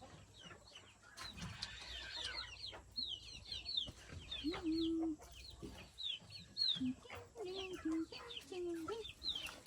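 Chickens calling: many short, high, falling peeps come in quick runs, with a few lower, drawn-out hen clucks about halfway through and near the end.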